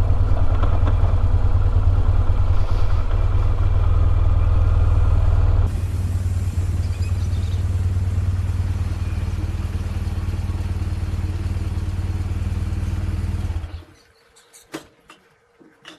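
2005 BMW R1200GS flat-twin boxer engine running steadily as the motorcycle rides slowly along, then stopping abruptly near the end, followed by a few faint clicks and knocks.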